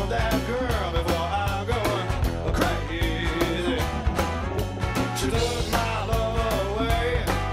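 Background music: a rock-style song with singing over a steady drum beat.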